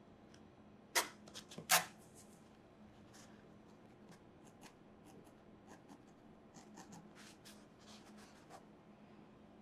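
A barbed felting needle stabbing repeatedly into loose wool over a foam pad, in soft, scratchy little pokes. Two sharper clicks sound about a second in.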